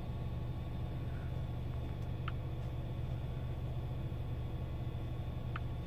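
Steady low hum inside a car cabin with the car switched on, with two short faint blips, one about two seconds in and one near the end.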